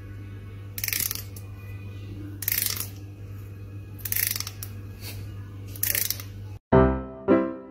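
A fingernail is run along the teeth of a comb in several short scratchy strokes, about a second and a half apart, over a steady low hum. Near the end it cuts to music with evenly spaced piano-like notes.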